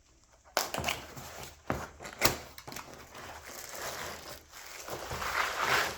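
Packaging being handled and opened: irregular rustling and crinkling, with two sharp clicks around two seconds in.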